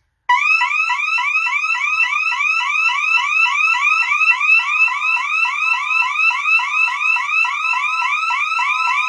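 Alarm system's burglary siren sounding after a moment of quiet: a loud, fast, steady run of short rising chirps. It is set off by a manual test of a System Sensor 100 series smoke detector wired to a Honeywell Vista 15P panel as a 24-hour audible zone, so it gives the burglary sound rather than a fire warble.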